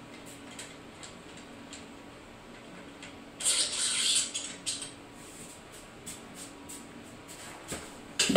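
Hands working on a hanging e-bike: scattered light clicks, with a rustling, hissing burst of about a second roughly three and a half seconds in and a sharp click at the very end.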